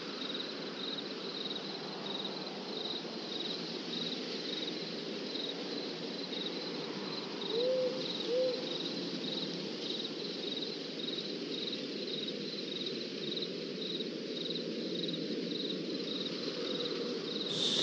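Crickets chirping in a steady pulsing trill over a low, even background rumble. Two short rising-and-falling low calls sound about eight seconds in.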